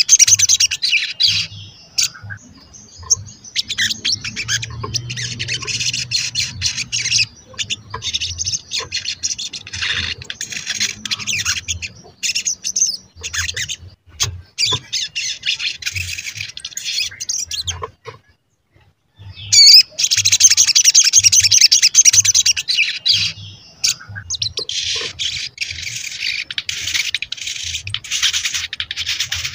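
Olive-backed sunbird (sogon) singing: bursts of rapid, high twittering chirps a second or two long, with short pauses between them and one longer pause a little past the middle.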